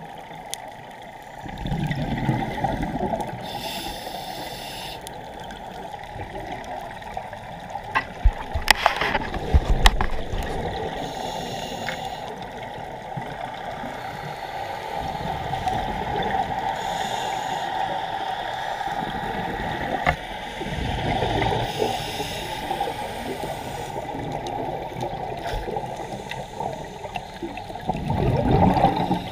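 Scuba diver breathing through a regulator, heard underwater: muffled gurgling surges of exhaled bubbles every several seconds. A few sharp clicks sound about eight to ten seconds in.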